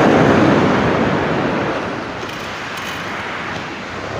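Wind buffeting the microphone over the wash of surf breaking on the beach, a steady rushing noise that eases a little about halfway through.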